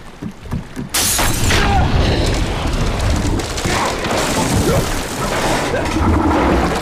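A sudden loud crash about a second in, then a continuous heavy din of crashing, churning water as the great white shark rams into the flooded, sinking boat, in a film soundtrack's effects mix.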